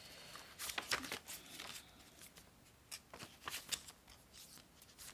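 Paper pages of a stitched art journal being turned by hand: faint, short rustles and flicks of paper scattered through.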